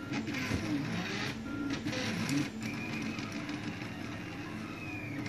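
3D printer's stepper motors whining, several tones shifting up and down in pitch as the machine moves, with a few faint clicks in the first couple of seconds.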